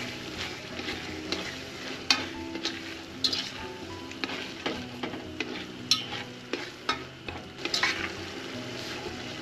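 Tomato sauce sizzling in an aluminium pot as it heats toward the boil, stirred with a ladle that scrapes and knocks against the pot a few times.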